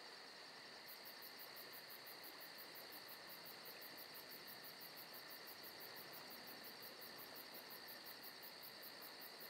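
Near silence: a faint steady background with a fast, even high-pitched pulsing of about five a second that starts about a second in.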